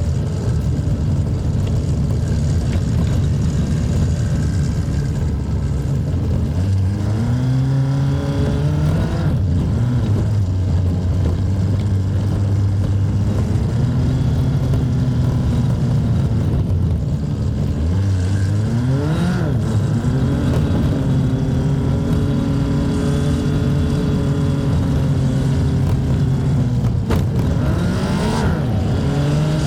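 Mitsubishi L200 pickup's freshly overhauled diesel engine pulling on the road. Its note climbs under acceleration and drops back at gear changes, three times over.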